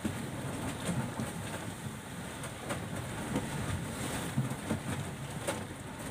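Strong wind and a rough sea around a small wooden fishing boat, with gusts buffeting the microphone and scattered sharp taps.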